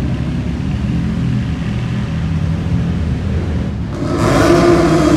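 Car engine running with a low, steady rumble; about four seconds in, a louder rush of engine and exhaust noise as a car accelerates.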